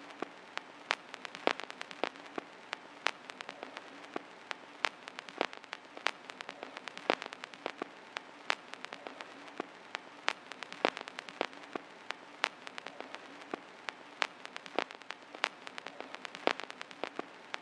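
Vinyl record surface noise from a stylus riding the groove: a steady soft hiss with irregular pops and crackles, several a second, some louder than others. No music is heard.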